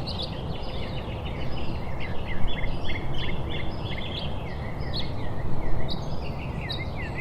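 Many small birds chirping in quick, short, repeated notes, over a steady low background noise.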